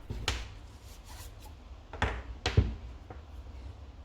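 Handling noise of parts being worked by hand: three sharp knocks, one shortly after the start and two close together about two seconds in, over a low steady hum.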